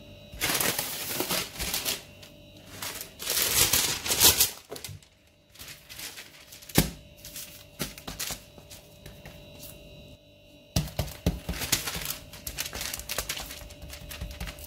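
Parchment paper crinkling and rustling in several bursts as hands press and spread a round of soft dough on it, with one sharp tap about seven seconds in.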